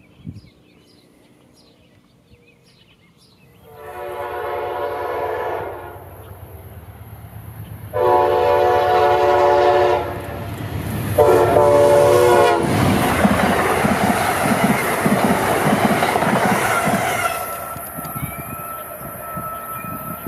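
A train sounds three blasts of its horn, each about two seconds long, then passes close at speed: a loud rush of wheel and rail noise with a rhythmic clickety-clack for about five seconds, easing off near the end.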